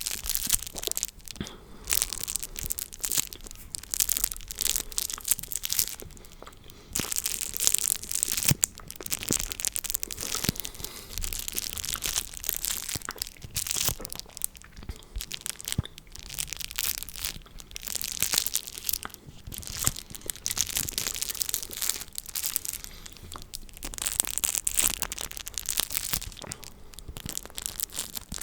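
Close-miked crackling and crinkling ASMR trigger sounds, dense and grainy, coming in bouts with short pauses between them.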